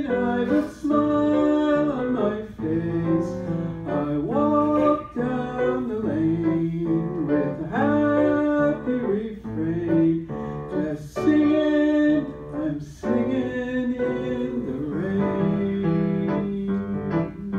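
A woman singing a song with instrumental accompaniment.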